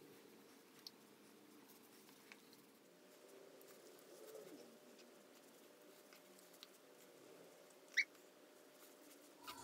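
Near silence: faint room tone with a few tiny clicks, and one short, high squeak about eight seconds in.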